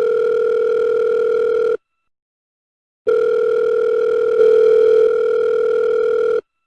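Telephone ringing tone: two long steady electronic tones, the first about two seconds and the second about three, with a short gap between them, as a call rings through unanswered before going to voicemail.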